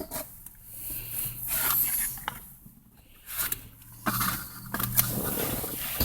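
Cardboard packaging and paper inserts being handled: rustling and scraping broken by several sharp clicks and taps, with a faint low hum about one to five seconds in.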